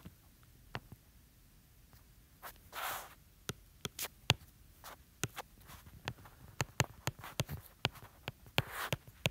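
A stylus tip tapping and clicking on a tablet's glass screen during handwriting: an irregular run of small sharp clicks, sparse at first and coming thick and fast from about three and a half seconds in.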